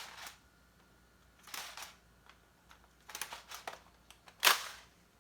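Plastic clicks and rattles of an Adventure Force XL10 pump-action foam blaster being loaded with Rival foam balls, a few scattered clicks and a louder single clack about four and a half seconds in.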